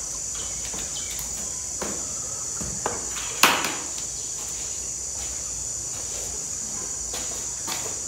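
Steady high-pitched insect drone. Over it come a few light knocks and one sharp clack about three and a half seconds in, from plastic buckets being handled on a concrete floor.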